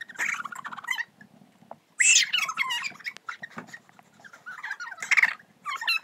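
Girls giggling and squealing in high-pitched, stifled bursts with mouthfuls of sparkling water, the loudest burst about two seconds in.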